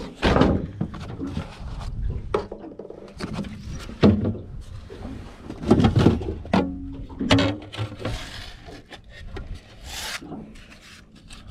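Handling noise in an aluminum boat: irregular knocks, bumps and rubbing as gear is moved about and a crappie is laid on a measuring board. The sharpest knocks come right at the start, about four seconds in and about six seconds in.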